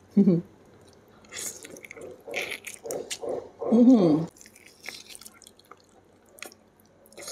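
Wet chewing and biting of steamed chicken drumstick meat, with a few muffled vocal sounds made through a full mouth in the first half, then scattered lip-smacking clicks.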